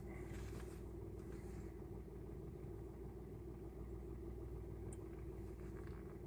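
Faint, steady engine hum, like a vehicle or machine idling, with a low rumble beneath.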